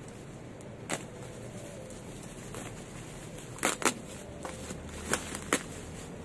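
Plastic bubble wrap being handled and pulled open, giving a few sharp crinkling cracks, the loudest a close pair about midway, over a steady background noise.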